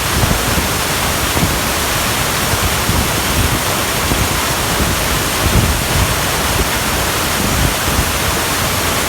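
Waterfall pouring down close by: a loud, steady rush of falling water, with irregular low buffeting thumps.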